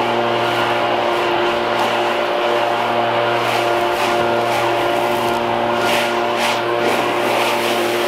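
Stihl BR700 backpack leaf blower's two-stroke engine running steadily, its air blast pushing dry leaves across the lawn.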